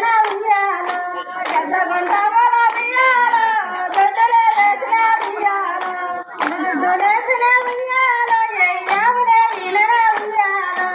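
High women's singing of a folk song, kept in time by a steady rhythm of handclaps from a circle clapping dance.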